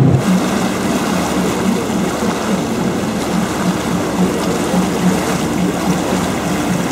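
Vaporetto water bus under way: water rushing and churning along the hull and in the wake, steady throughout, with the boat's engine humming underneath.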